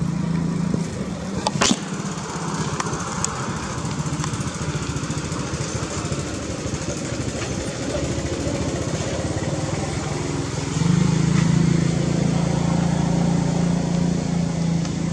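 An engine running steadily with a low drone, getting louder about eleven seconds in. A single sharp click about one and a half seconds in.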